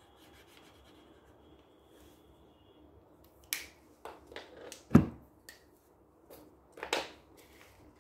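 Felt-tip markers and paper being handled on a wooden tabletop: a few short clicks and knocks as markers are picked up and set down. The loudest is a thud about five seconds in.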